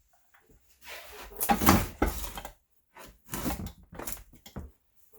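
Irregular clatter, knocking and scraping of tools and hardware being handled and set down on a work surface, in two bursts with the loudest knock about a second and a half in.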